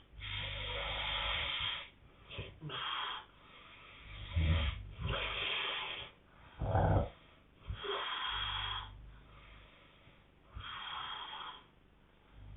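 A sleeping couple snoring, their snores and breaths coming irregularly and partly interleaved. Some are hissing breaths and some are deep rattling snores, the loudest about halfway through.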